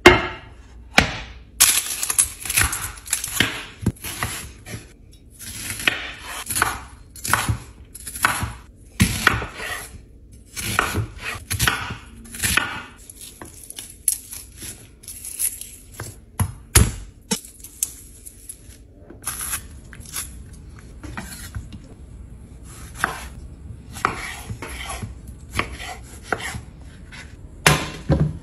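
Chef's knife dicing an onion on a bamboo cutting board: irregular sharp knocks of the blade striking the wood, in runs with short pauses. Heavier knocks come at the very start and near the end.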